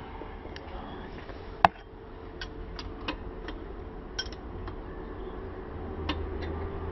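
Scattered sharp clicks and light metallic taps of tools and parts being handled, one much louder strike about a second and a half in, over a steady low hum.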